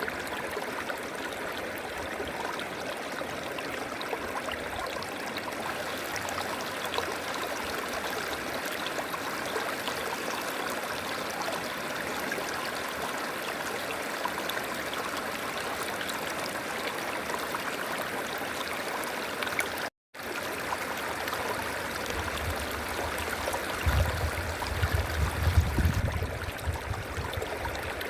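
River water flowing steadily in an even rushing wash, cut off by a momentary gap of silence about two-thirds of the way through. Near the end, a low rumbling rises over the water for a few seconds and is the loudest part.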